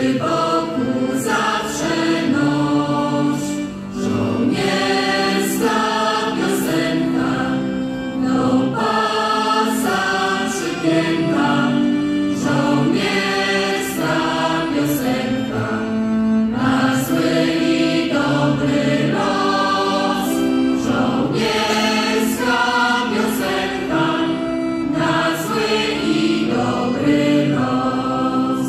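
Mixed choir of men's and women's voices singing a Polish patriotic song together.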